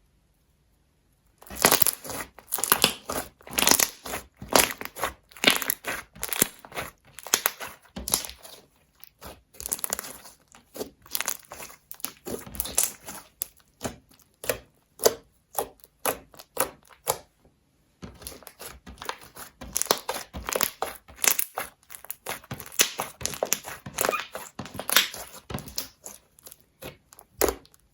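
Slime being kneaded and squeezed by hand, a dense run of sticky clicks and pops, starting about a second and a half in, with a short break about two thirds of the way through.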